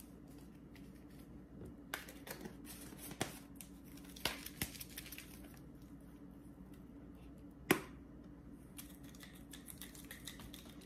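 Sparse light knocks and clicks of a garlic powder container being worked to free powder that has hardened and caked inside, with one sharper knock late on.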